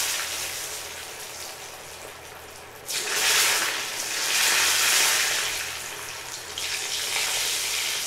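Battered chicken pieces deep-frying in hot oil in a steel pan, sizzling. The sizzle jumps up suddenly about three seconds in and again near the end as more battered pieces go into the oil.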